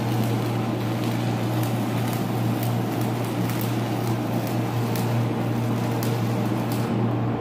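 Electric arc welding on a steel I-beam: the arc crackles steadily with frequent sharp pops, over a steady low hum. The arc breaks off shortly before the end.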